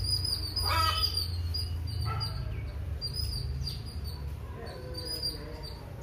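Birds chirping: a run of short, high, repeated notes, with a couple of lower calls about one and two seconds in, over a low rumble.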